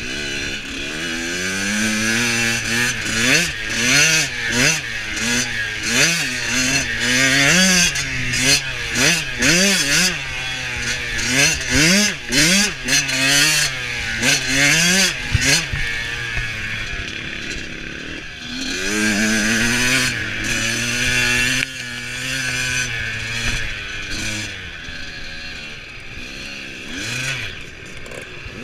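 Dirt bike engine heard close up from the bike, revving up and dropping back over and over through the gears. About halfway through it eases to a lower, steadier note, then picks up again, and it runs more evenly near the end.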